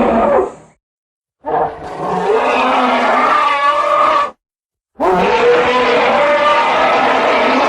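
Elephant calls: the tail of one call cuts off about half a second in, then two long pitched calls of about three seconds each follow, each preceded by a gap of dead silence.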